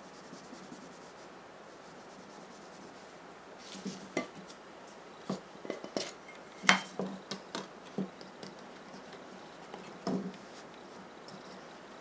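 Light rubbing at first, then a string of short metallic clicks and clinks as a small round metal tin is handled and opened next to a steel kitchen knife, the sharpest clink just past the middle.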